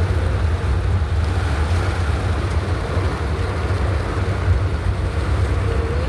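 Strong storm wind buffeting the microphone, a steady deep rumble with a hiss of gusts over it.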